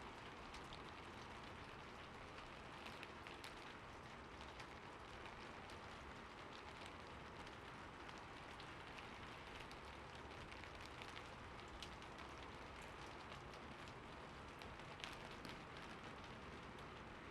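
Light rain falling steadily: a soft, even hiss with many scattered drop taps.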